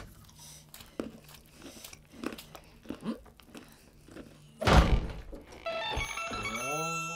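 Faint scattered small taps, then about two-thirds of the way in a sudden loud swish with a low thud as a curtain is pulled aside. It is followed by a short music sting of chiming notes with rising glides.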